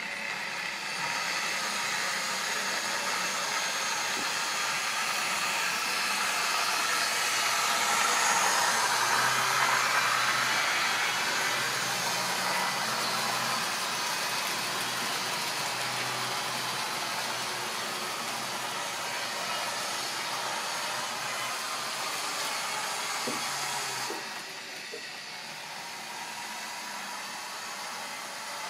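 Model railway trains of tank wagons running along the layout's track: a steady rumble and clatter of wheels on the rails with a faint motor hum, loudest about ten seconds in as they pass close. The noise drops off suddenly near the end.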